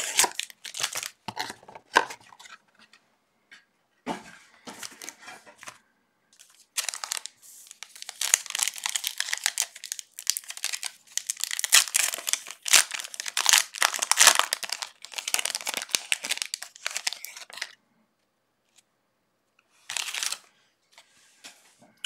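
Foil trading-card pack wrappers being torn open and crinkled by hand, in several bouts of rustling with short pauses. The longest bout runs about ten seconds.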